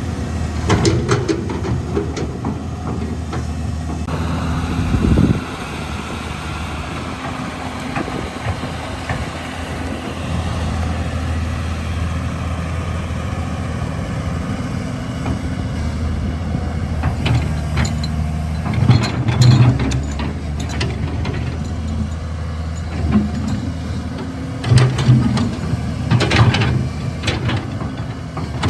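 Caterpillar 320 hydraulic excavator's diesel engine running steadily, with several sharp knocks. The engine and knocks grow louder in two spells, about two-thirds of the way through and near the end.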